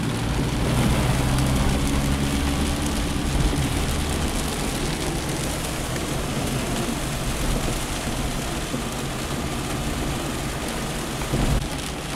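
Heavy rain drumming on a Fiat Panda 900ie's roof and windscreen, heard from inside the cabin while driving, with the car's engine running underneath, most prominent for the first few seconds.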